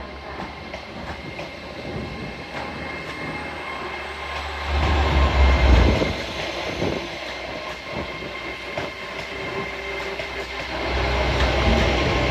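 Train moving through a station: a heavy low rumble swells about five seconds in and again near the end, with a run of wheel clicks over the rail joints in between.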